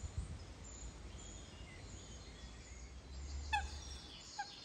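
Eurasian coot calling: two short, sharp notes about a second apart near the end, over small songbirds twittering in the background.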